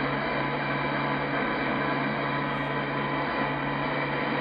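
Shortwave receiver audio from a Yaesu FTdx10 tuned near 15.360 MHz: a steady static hiss with a low hum, where there seems to be a weak signal that is too faint to make anything out.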